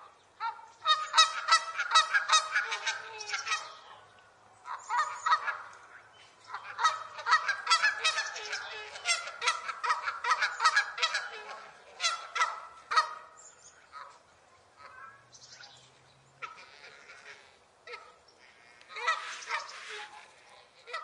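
Geese honking in bouts of rapid, repeated honks, with short pauses between bouts, a quieter stretch past the middle and a final loud bout near the end.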